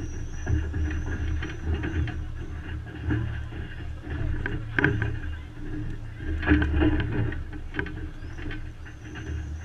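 Mixed noise of an outdoor crowd, with a low rumble of wind on the microphone; louder bursts of noise about five seconds in and again around seven seconds.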